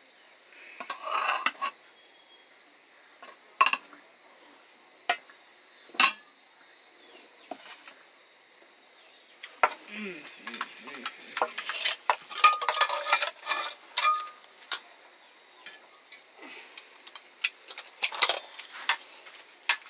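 Metal ladle knocking, scraping and clinking against stainless steel plates and pots as rice is served out, in scattered strokes that come thickest about halfway through.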